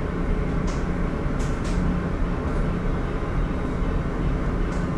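Steady low drone of a car ferry's engines and machinery heard inside the ship, with a constant low hum and a few faint clicks.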